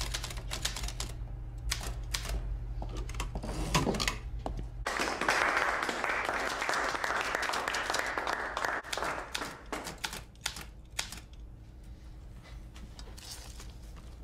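Mechanical typewriter being typed on: a run of rapid key strikes. A steady low hum lies under the first five seconds and stops suddenly, giving way to a hiss.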